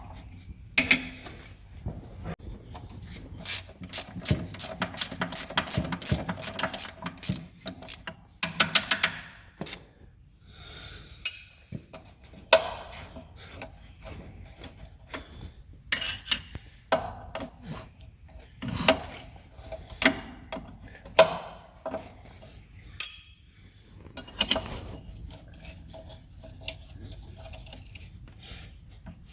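Ratchet wrench clicking in quick runs, the longest in the first several seconds, with scattered metal clinks and knocks, as the hydraulic pump's mounting bolts are backed off.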